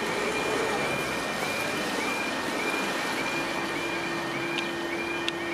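Level crossing warning alarm sounding, a warbling two-tone repeating about twice a second, which warns that the barriers are about to come down for a train. Steady hiss of road traffic passing underneath it.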